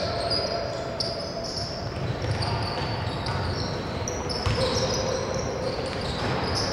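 Basketball game on a hardwood court in a large hall: the ball bouncing on the floor with dull thuds, mixed with short high sneaker squeaks and some shouting from players.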